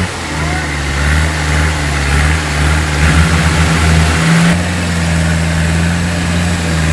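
Off-road 4x4's engine running hard at steady high revs under heavy throttle, with a rougher, wavering stretch about three seconds in.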